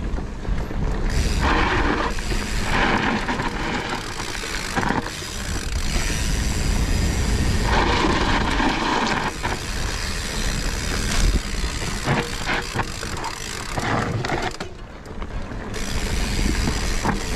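Mountain bike riding fast down a dirt forest singletrack: tyres rolling over dirt and leaves, the bike rattling with short knocks over bumps, and wind rushing steadily over the microphone. The noise surges louder several times and briefly drops near the end.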